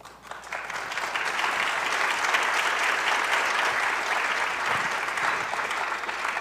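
Audience applauding, a dense clatter of many hands that builds over the first second and starts to fade near the end.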